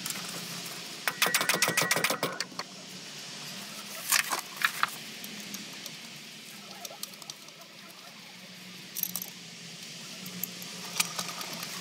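Socket ratchet clicking in a quick even run about a second in as the damper pinch bolt is threaded into the coilover's damper fork, followed by a few scattered metallic clinks of tools and hardware.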